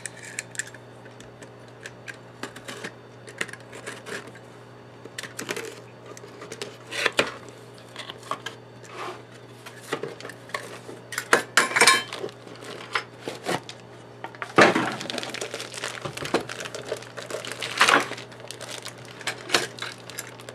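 Cardboard box and packaging handled and opened on a workbench: irregular clicks, knocks and scrapes, then longer stretches of plastic wrapping crinkling in the second half, over a steady low hum.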